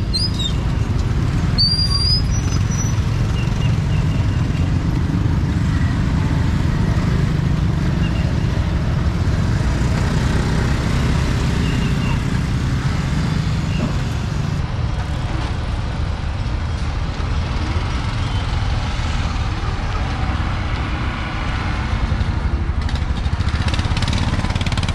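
Street traffic outside a busy market: a steady low rumble of passing vehicles and motorbikes, with a short high squeal about two seconds in.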